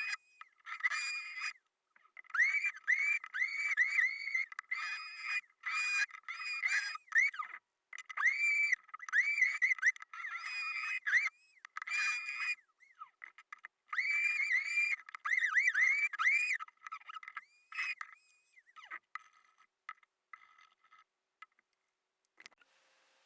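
CNC router's stepper motors whining as the machine moves, the pitch rising and falling with each start and stop. The moves come in quick runs broken by short pauses.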